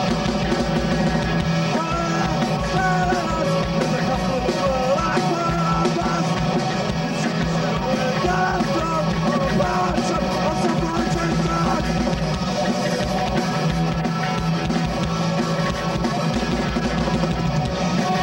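Rock band playing live: electric guitar, electric bass and drum kit keeping a steady beat.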